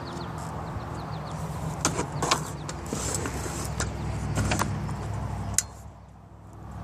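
Corded circular saw running as it trims the edge of a plywood sheet, with several sharp knocks and clicks along the way. Its sound drops off sharply after a click near the end.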